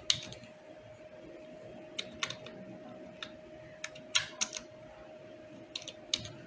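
Typing on a computer keyboard: scattered, irregular keystrokes in small clusters.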